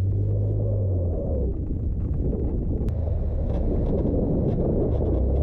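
Jeep Wrangler JK driving over soft desert sand: a steady low engine and drivetrain rumble, mixed with wind buffeting the exterior-mounted camera's microphone.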